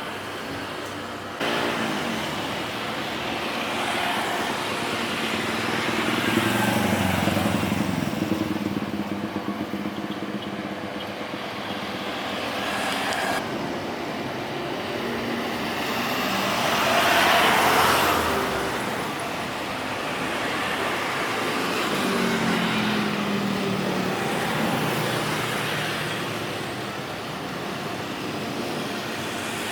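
Steady vehicle and engine noise, rising and falling in slow swells, with one loud pass-by that builds and fades about seventeen seconds in.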